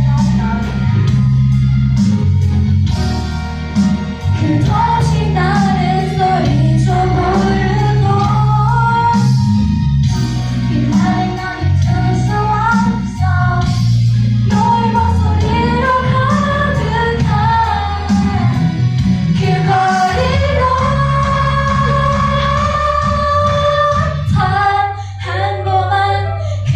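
A solo singer performing a slow Korean ballad over an instrumental backing track, the melody sliding between notes and holding long sustained notes, one through the second half.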